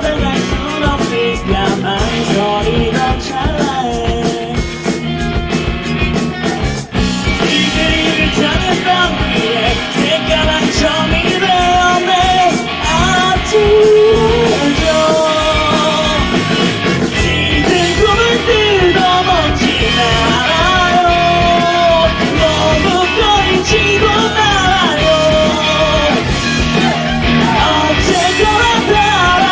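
Live rock band playing a song, with a lead singer over guitars and drums. There is a brief break about seven seconds in, then the full band comes back in slightly louder.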